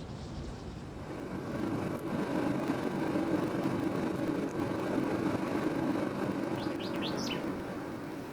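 A low rumble swells over a couple of seconds, holds, then slowly fades. Near the end a bird chirps four quick rising notes.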